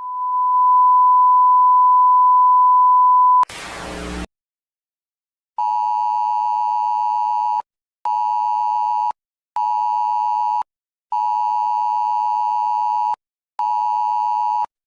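Electronic alert tones of a mock emergency alert broadcast. A steady pure beep lasts about three and a half seconds, then a brief burst of static, then a series of fuller, buzzing electronic tones, each one to two seconds long with short gaps between them.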